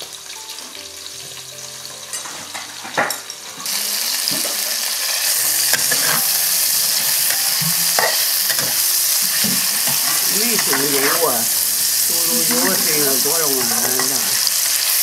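Diced pork fat and onion stir-frying in hot oil in an aluminium wok, a loud steady sizzle that starts suddenly about four seconds in. A metal ladle knocks and scrapes against the wok as it stirs.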